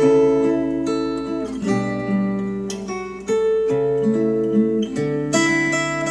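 Acoustic guitar music played back through KEF LS50 Meta bookshelf speakers, switching to KEF R3 bookshelf speakers about three seconds in, with a short dip and then a jump in loudness at the changeover.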